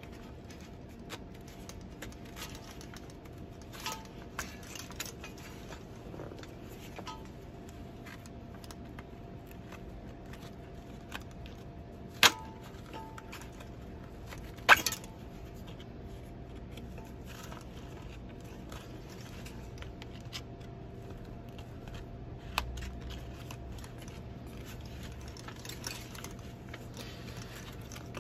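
Hands working 2-inch nylon webbing of a dive harness through the slots of a metal backplate with needle-nose pliers: soft rustling and scattered light clicks, with two sharp clicks about two and a half seconds apart near the middle, over a steady low room hum.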